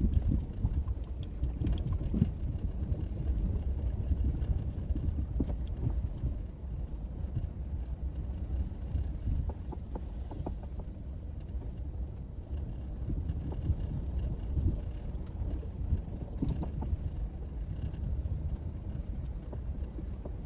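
A 4x4 vehicle driving slowly over a rough dirt trail: a steady low rumble with scattered knocks and clatters.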